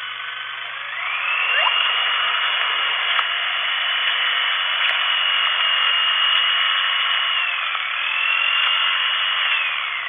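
Vacuum cleaner running: a steady hiss with a high whine that rises about a second in, holds, dips briefly and comes back, then winds down near the end.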